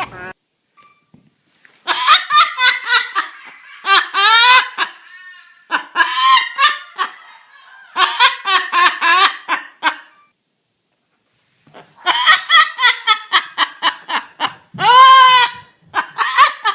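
High-pitched laughter in five bouts of quick pulses with pauses between, ending in one long call that rises and falls near the end.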